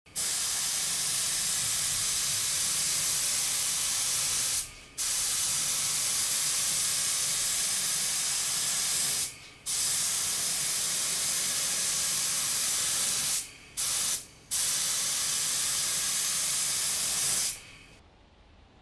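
Gravity-feed HVLP paint spray gun spraying a steady hiss of air and atomised coating, probably sealer, onto a fiberglass bumper. The hiss cuts out briefly four times as the trigger is released between passes, with two of the gaps close together, and stops about a second before the end.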